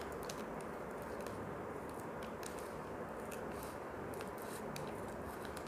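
Scissors slowly snipping through a plastic mailer bag: faint, irregular little clicks and crinkles of the blades closing on the plastic, over a steady background noise.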